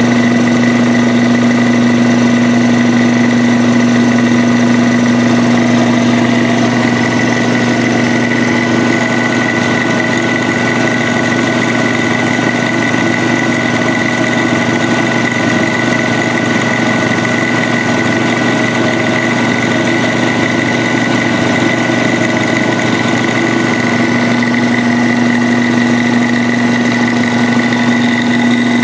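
Old electric-driven piston air compressor, which the owner thinks is a Quincy, running steadily as it pumps up its tank after a rebuild. It makes a constant hum with a strong low tone and a steady high whine.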